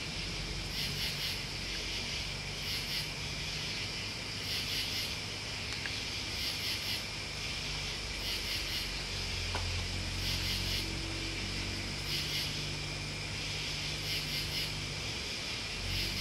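Night chorus of crickets and other insects: a steady high trill with louder pulsed calls repeating about every two seconds. A low rumble runs underneath.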